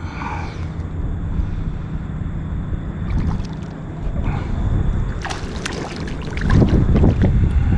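Wind buffeting the microphone with a steady low rumble, broken by several bursts of water splashing and sloshing against a kayak, loudest near the end.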